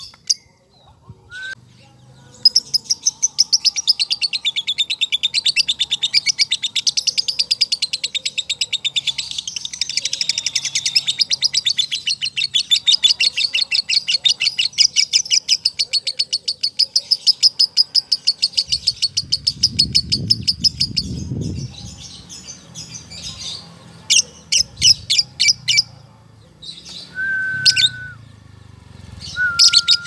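Male lovebird giving its ngekek: a long, unbroken chatter of rapid high chirps lasting about sixteen seconds. A few short chirp bursts follow near the end.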